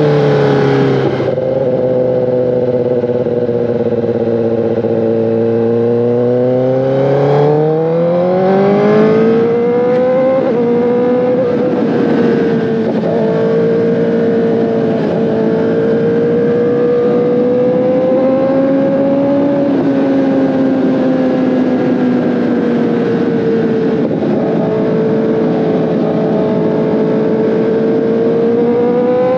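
Kawasaki ZX-10RR's 998 cc inline-four engine running under way at a steady pitch, then revving up sharply for a few seconds as it accelerates. It then holds a fairly even cruising note with small rises and dips.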